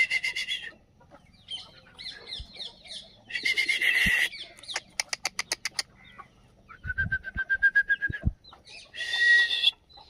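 Young Aseel chickens clucking and calling, a string of short, separate calls. About halfway through comes a quick rattle of even clicks, then a fast pulsed clucking and one longer call near the end.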